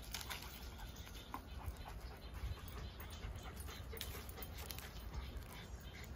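A dog panting, with scattered light clicks over a low rumble.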